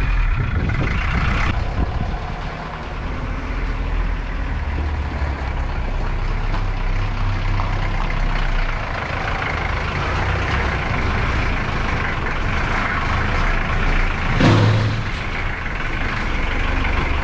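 Żuk van's engine running steadily, with a brief louder surge about fourteen seconds in.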